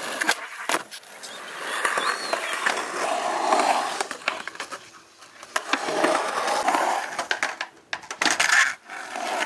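Skateboard wheels rolling on a concrete bowl, the rolling noise swelling and fading as the riders carve. Sharp clacks of the board and trucks hitting the concrete come near the start and twice near the end.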